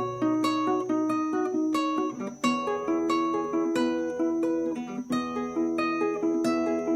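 Acoustic guitar played fingerstyle: single plucked notes in a flowing, even arpeggio pattern, about three notes a second, letting notes ring over one another.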